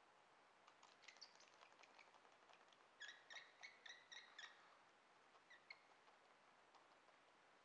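Faint sound of a blade scraping cured repair resin off windshield glass: light scratchy ticks, then a quick run of about seven short squeaks about three seconds in and two more shortly after.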